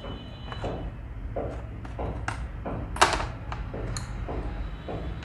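Small metal sewing-machine parts and a screwdriver clicking and clinking as they are picked up and set down on a wooden workbench: a dozen or so short, sharp taps, the loudest about three seconds in, over a low steady hum.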